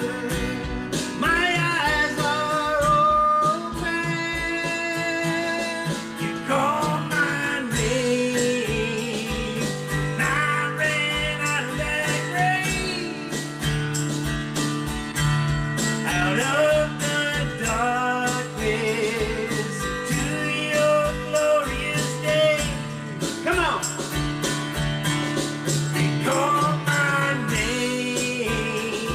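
A worship song sung to guitar accompaniment, with a steady beat underneath.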